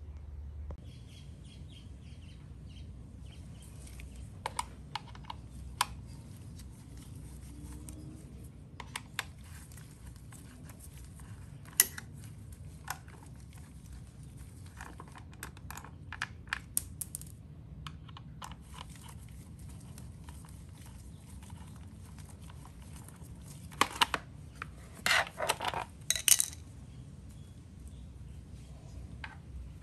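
Light clicks and clinks of hand tools and metal hardware being handled at a motorcycle engine, scattered and irregular over a low steady room hum. A short run of louder clattering comes about three-quarters of the way through.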